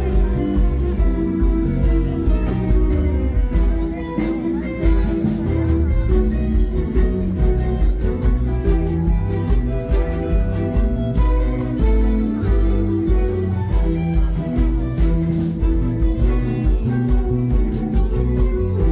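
A string orchestra of violins, cellos and double bass plays with a drum kit. Under the melody there is a steady bass pulse, and a few cymbal swells come in along the way.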